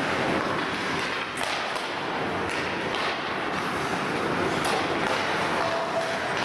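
Hockey game play: a steady din of rink noise, broken by a few short, sharp knocks of sticks and puck during play.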